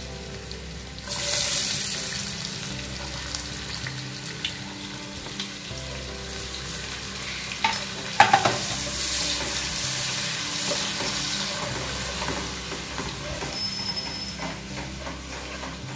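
Chopped onion dropped into hot butter and oil in an aluminium kadai, the sizzle jumping up about a second in and then frying steadily. A steel ladle stirs it, knocking sharply against the pan twice in the middle.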